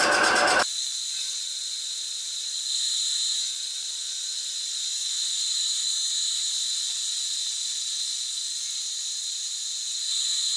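Milling machine in horizontal setup cutting a cast-iron part: a steady, high-pitched squeal with hiss.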